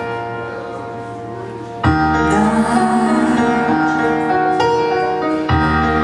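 A woman singing live into a microphone over a piano-led backing track. About two seconds in, the accompaniment becomes louder and fuller, with a heavier low end.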